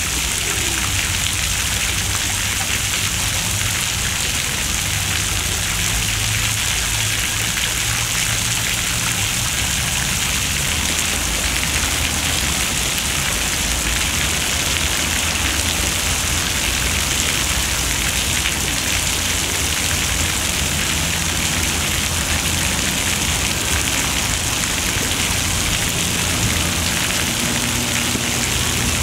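Fountain water jets splashing into a shallow stone basin: a steady, even hiss of falling spray, much like rain on a hard surface.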